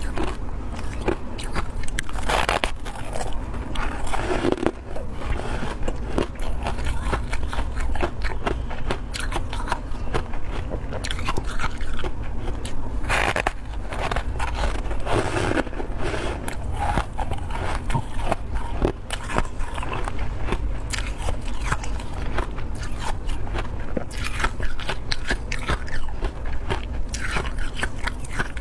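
Close-miked biting and chewing of powdery freezer frost: a dense, continuous run of crisp crunching and crackling.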